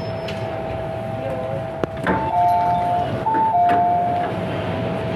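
A two-note electronic chime on an MTR Tsuen Wan Line M-Train sounds twice, a higher note then a lower one each time, about two seconds in. Under it runs the train's steady interior noise with a constant whining tone. A sharp click comes just before the first chime.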